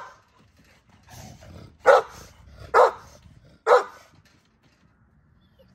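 American bully dog barking three times, a little under a second apart.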